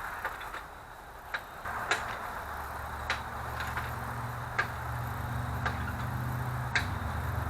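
Scattered light metallic clicks and taps of a hand tool working a seized steel stud back and forth in an aluminum timing cover. A steady low machine hum comes in a little under two seconds in and carries on underneath.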